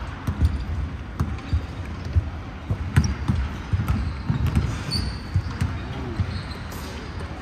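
Basketballs bouncing on a hardwood gym floor: irregular dull thuds from dribbling and shots, with a few short high squeaks.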